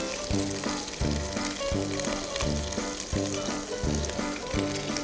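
Lamb chops sizzling as they sear in a hot frying pan. Background music with a steady beat runs underneath.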